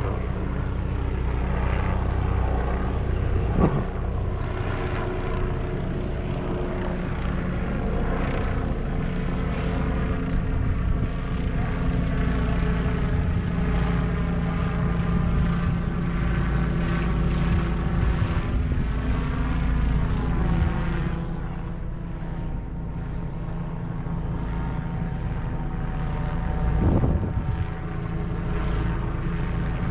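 Medical helicopter flying overhead: a steady drone of rotor and turbine engine with a layered hum. The pitch of the hum dips about two-thirds of the way through.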